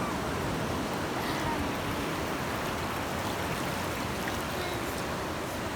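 Steady rushing of ocean surf washing on the shore, an even noise with no distinct breaks.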